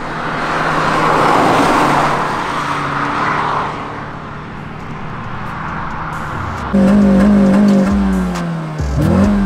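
2008 Suzuki Swift Sport's naturally aspirated 1.6-litre four-cylinder on its standard exhaust. First a rush of engine and tyre noise swells and fades as the car drives past. Then, about seven seconds in, a loud, steady engine note starts, dips briefly and comes back near the end.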